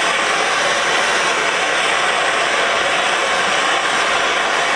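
Handheld gas torch burning with a steady, even hiss as its flame heats the steel head of a small hammer to bend it straight.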